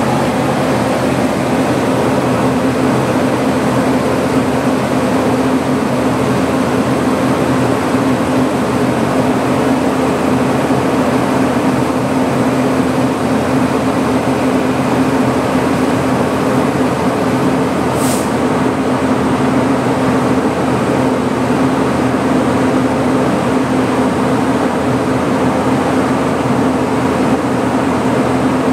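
Stationary locomotive running: a steady loud hum with a constant rushing noise over it, and a single short high click about eighteen seconds in.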